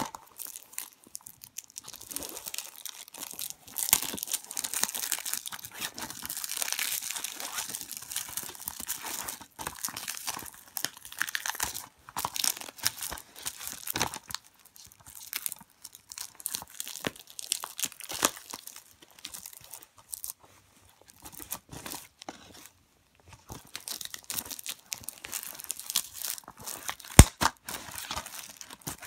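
Clear plastic shrink wrap being torn and peeled off a Blu-ray case, crinkling and crackling irregularly. It pauses for a few seconds about two-thirds of the way through, and one sharp click comes near the end.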